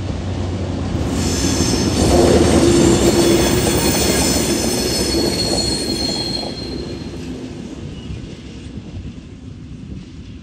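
Two TasRail TR class diesel-electric locomotives running coupled as light engines pass close by. Their engines rumble, growing to a peak about two seconds in and fading away after about six seconds, while the steel wheels squeal high on the rail through the pass.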